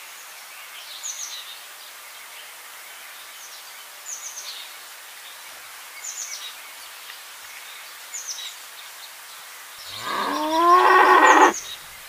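Outdoor ambience with small birds giving short, high, falling chirps every second or two. Near the end comes a loud cow's moo, rising in pitch and lasting about a second and a half.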